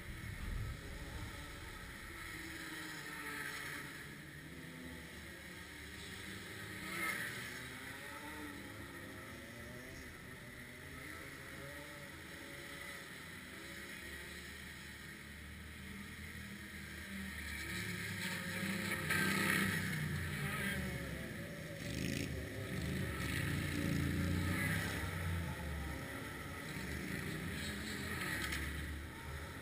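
Two-stroke Rotax kart engines running on the track at a distance, their pitch rising and falling as they go past, louder in the second half.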